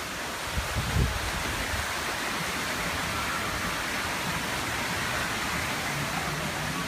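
Steady rushing outdoor noise, with a few short low bumps about a second in.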